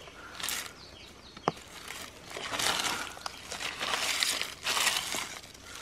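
Dry leaf litter rustling and crackling as a hand rakes and scrabbles through leaves, twigs and soil on the ground, in several bursts that grow busier in the second half. A single sharp click comes about a second and a half in.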